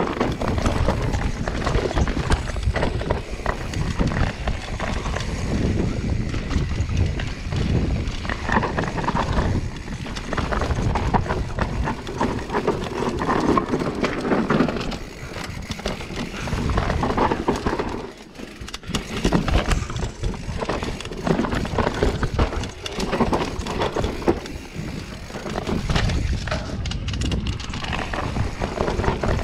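Mountain bike descending a rough dirt singletrack at speed: a continuous rushing noise of tyres on dirt and rock, with the bike knocking and rattling over bumps. It goes briefly quieter about eighteen seconds in.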